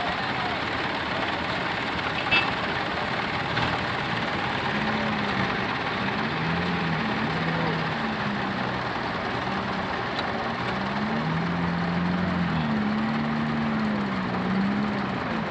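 Old tractor engines running, with a low engine note that rises and falls in pitch from about four seconds in.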